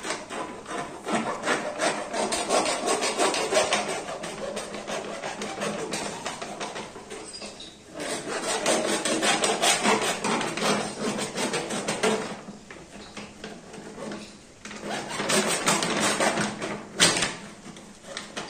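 Thick plastic packaging bag of a water-purifier filter kit crinkling and scraping as it is torn and cut open with a knife, in bouts with short pauses and a sharp click near the end.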